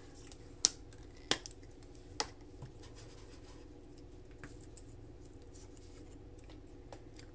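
Three sharp clicks in the first couple of seconds as paper-craft tools are handled on a cutting mat, then only a faint steady hiss.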